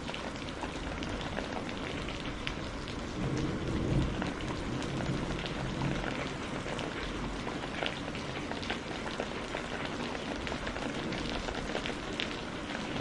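Steady rain falling, with individual drops ticking, and a brief low rumble swelling about four seconds in.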